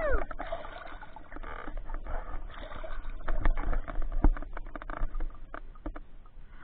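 Muffled water splashing and sloshing around a swimmer, heard through a waterproof camera case, with irregular knocks and clicks.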